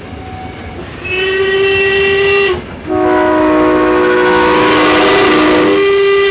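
A locomotive's warning signal sounds twice: a short single-note blast about a second in, then a longer blast of several notes together with a strong hiss, heard from inside the locomotive cab.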